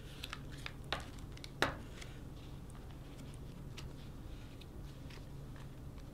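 Soft handling noises of a folded stack of paper banknotes being worked into a leather money clip wallet. Two sharper clicks come in the first two seconds, then faint scattered ticks and rustles.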